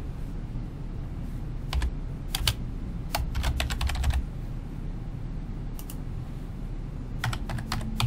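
Computer keyboard typing in short bursts of quick keystrokes, separated by pauses.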